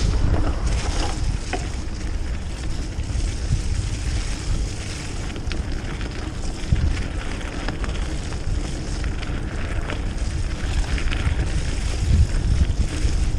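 Wind buffeting the microphone, a steady low rumble, with a few scattered light clicks and rattles.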